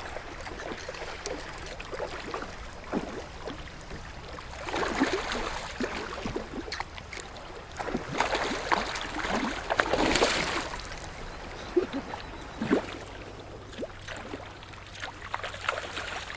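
Water lapping and splashing against a kayak hull as it moves along the river, with scattered small knocks and two louder swells of splashing about five and nine seconds in.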